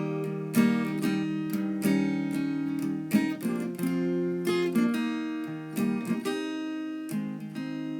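Acoustic guitar strumming chords between sung lines of a song, each strum ringing on.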